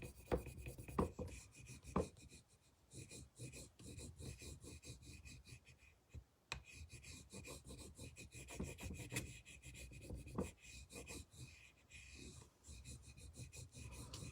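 Quiet, irregular rubbing and light scraping: a rub-on furniture transfer being burnished onto a painted surface, with a few small clicks.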